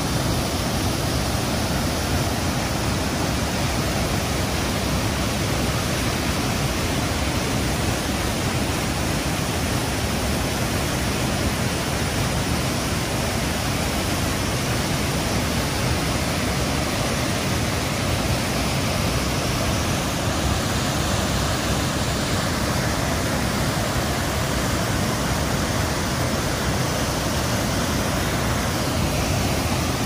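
Waterfall: a steady, loud rush of white water pouring over a rock ledge into the river below.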